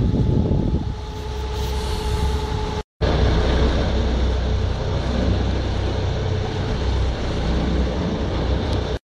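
Wind buffeting the microphone over a low, steady rumble aboard the lugger yacht. The sound cuts out abruptly for a moment about three seconds in, and again near the end.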